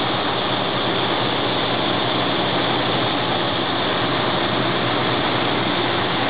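Ford 302 small-block V8 running steadily on a capacitive discharge ignition: a continuous, even engine sound with no change in speed.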